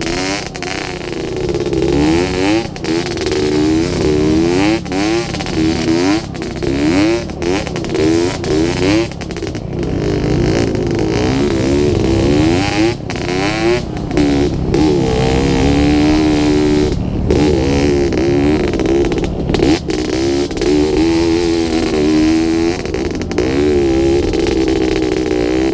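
Dirt bike engine under way on a rough trail, its pitch rising and falling over and over as the throttle opens and closes, with a constant rushing noise over it.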